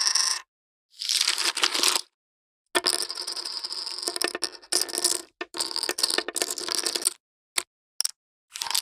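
Poker chips clicking and clattering against each other in a run of separate handfuls, each lasting between a fraction of a second and about two seconds, with sudden cuts to silence between them.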